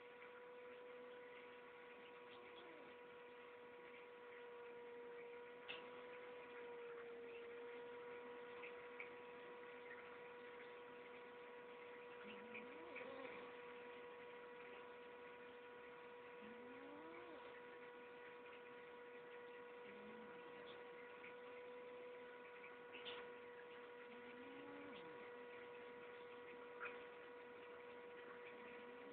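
Faint snoring of a sleeping cat: a few soft, rising wheezy breaths, several seconds apart, under a steady high electrical hum that is louder than the snores.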